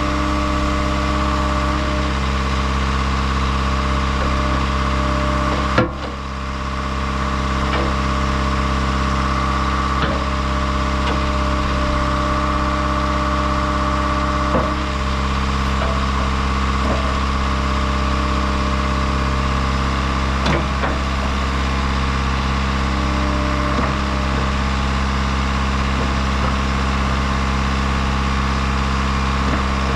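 John Deere 310 SL backhoe's diesel engine running steadily, with a sharp knock about six seconds in and a few lighter clunks later.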